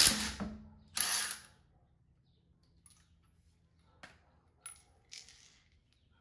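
Metal tools and parts being handled: two loud clattering knocks in the first second and a half, then a few light, separate clicks.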